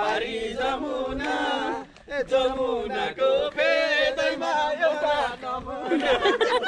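A man's voice singing a slow, chant-like melody in long held notes, with a short break about two seconds in.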